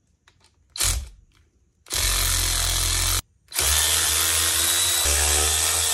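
Cordless power ratchet running in two bursts, one of about a second and one of nearly three seconds, backing bolts out of the bottom bearing carrier cap of an outboard powerhead. A short knock comes about a second in.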